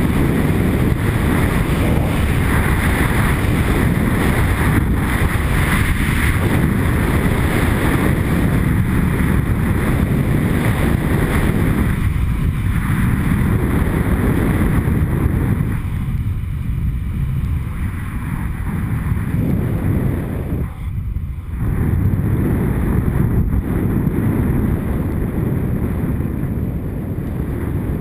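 Steady rush of wind over a GoPro camera's microphone during a fast ski descent, mixed with the hiss of skis running over packed, groomed snow. The rush eases briefly a few times, most in the second half.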